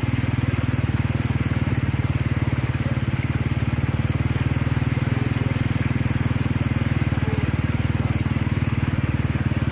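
Small motorcycle engine running steadily at low revs with a fast, even pulsing, kept slow through deep floodwater so it doesn't stall.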